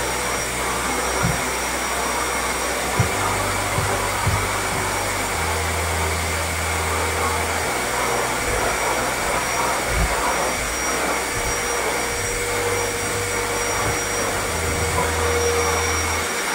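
Steady rushing noise of an electric fan-motor appliance, with the low bass notes of background music underneath.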